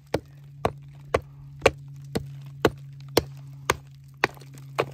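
Hand pick striking a soft chalky clay and rock face in a steady rhythm, about two sharp blows a second, ten in all, over a steady low hum.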